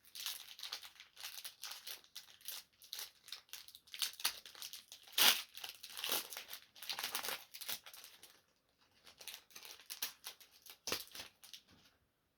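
Foil wrapper of a Pokémon TCG Astral Radiance booster pack being torn open and crinkled, a dense run of crackles with the loudest tear about five seconds in. The crinkling eases off briefly after about eight seconds, picks up again, and stops near the end.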